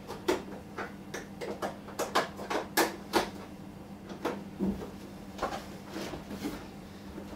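Irregular clicks and knocks of batteries and metal housing being handled while a battery is fitted into a UPS external battery pack, with a duller thump about two-thirds of the way in, over a steady low hum.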